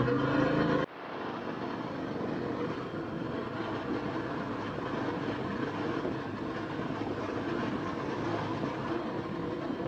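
Motorcycle running at road speed, a steady engine-and-wind drone heard from the rider's own microphone. A louder pitched engine note for the first second breaks off suddenly about a second in.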